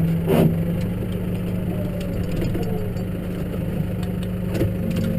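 Case tractor's engine running at a steady, unchanging note, with two short knocks over it, one about half a second in and one near the end.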